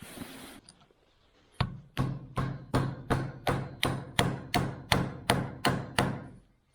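A small hammer tapping in a steady rhythm, about thirteen light blows at nearly three a second, as when tapping out a new gasket against the edge of the part. A brief hiss comes just before the tapping.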